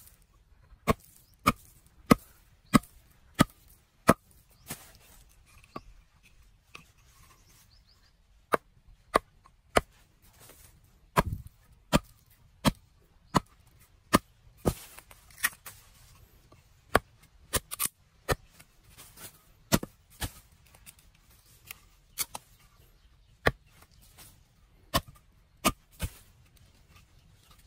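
Wood being chopped with a blade: a long run of sharp, single strikes, about one and a half a second, with a short pause partway through.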